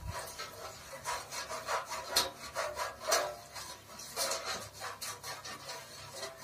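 Silicone pastry brush rubbing oil across a perforated stainless-steel steamer plate, in a quick run of irregular scraping strokes.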